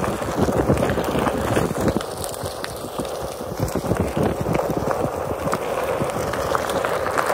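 A Onewheel Pint X electric board's single tire rolling over a dirt and gravel trail: a steady crunching rumble full of small irregular pops and clicks from stones and twigs under the tire, heavier for the first two seconds.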